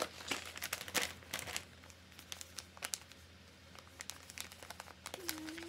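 Gift-wrapping paper crinkling and rustling as a wrapped present is handled, loudest in the first second and a half. After that come quieter small scratches and taps while she writes on the paper with a marker.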